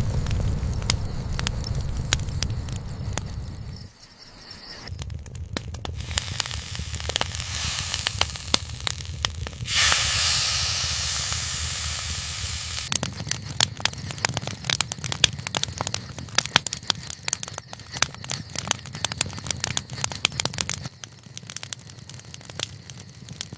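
Campfire crackling and popping with many sharp snaps, over a steady low rumble. About ten seconds in, a loud hissing rush rises and fades over about three seconds.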